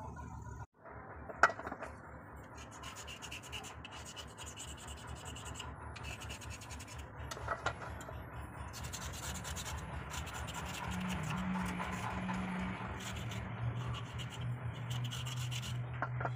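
Wet slate pieces rubbed and scraped against each other by hand in a steel bowl, a continuous gritty scraping with a sharp click about a second and a half in.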